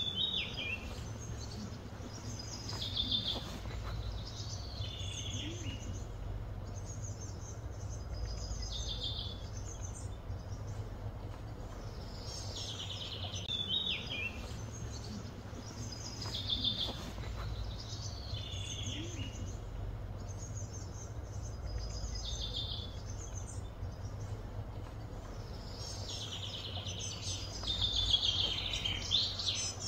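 Outdoor birdsong: a songbird repeating short, high phrases every few seconds, over a steady low hum of background noise.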